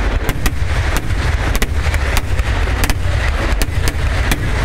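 Kerala temple-festival fireworks barrage (vedikkettu): sharp, irregular bangs several times a second over a continuous heavy rumble of blasts.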